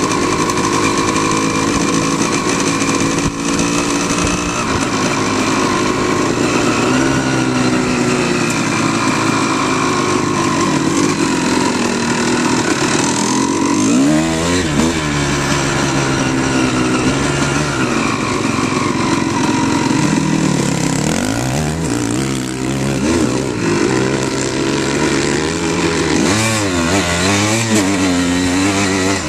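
Dirt bike engine running under way on a trail ride, heard close from the handlebars. It runs steadily, then its pitch rises and falls several times in the second half as the throttle is opened and closed.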